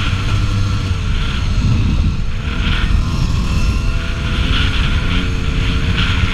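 Onboard sound of a 1989 Suzuki RM125's two-stroke single-cylinder engine running hard as the bike is ridden along a dirt straight, its pitch shifting up and down with the throttle.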